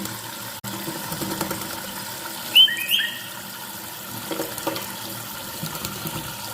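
Tap water running and splashing over a bathing black-capped lory. About two and a half seconds in, two short high whistled calls from the lory stand out as the loudest sounds.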